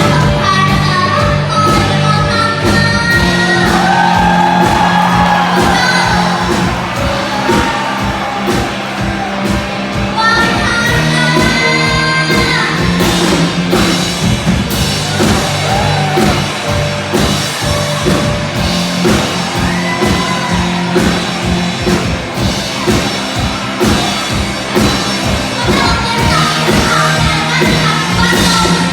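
Live band playing a rock song with a lead singer over a steady drum beat and bass, with shouts and whoops from the audience now and then.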